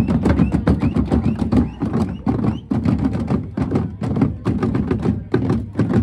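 Drums beating a fast, steady rhythm of sharp strikes over a busy background din.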